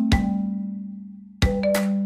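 Background music with a steady beat and ringing notes. It fades away about half a second in and comes back in suddenly near a second and a half.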